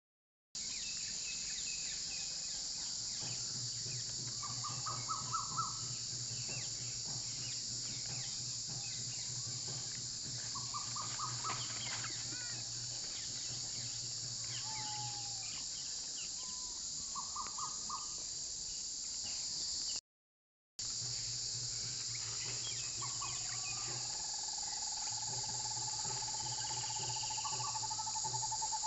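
Steady high-pitched chorus of insects with short rapid bird calls now and then and a long bird trill near the end, over a low steady hum. The sound cuts out for about a second two-thirds of the way through.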